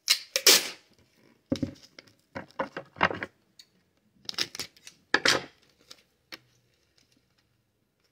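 Clear packing tape pulled off its roll and torn in about six short bursts, with a single click a little after six seconds.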